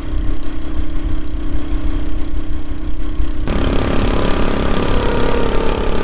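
A motor vehicle's engine running on the move under a steady, noisy rumble of wind on the microphone. The steady engine drone changes abruptly about three and a half seconds in.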